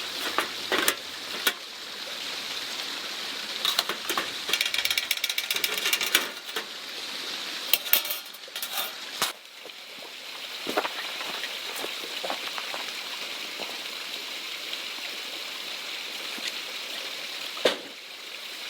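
Camping gear being handled and packed while a camp is taken down. Scattered clicks and knocks, a quick rattling run about four and a half seconds in and more clatter around eight seconds, over a steady hiss.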